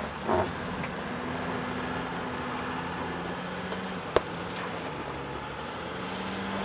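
Mercedes Sprinter 4x4 van's engine running at low revs with a steady hum that shifts slightly in pitch, as the van creeps through dry reeds and brush, with the scrape and rustle of the stalks against the body. There is a brief knock just after the start and a single sharp click about four seconds in.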